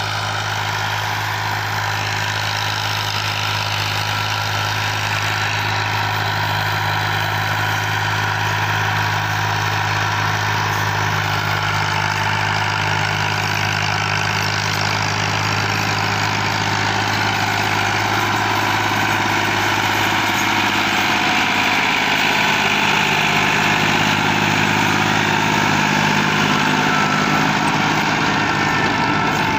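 Ghazi farm tractor's diesel engine running steadily as it pulls a rotavator through tilled soil, growing gradually louder in the second half.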